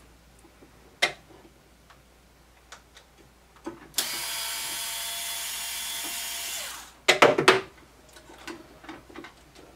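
Power screwdriver running steadily for about three seconds as it backs out a screw holding the receiver. A quick cluster of sharp clicks follows as it stops.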